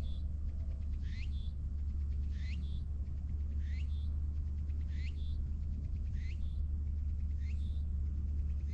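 A high call repeated evenly about once a second, each a quick upward sweep ending in a short higher note, over a steady low rumble.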